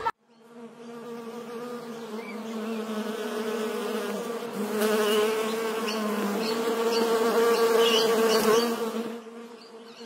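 Bee buzzing sound effect, a steady hum that fades in, grows louder toward the middle and fades out near the end.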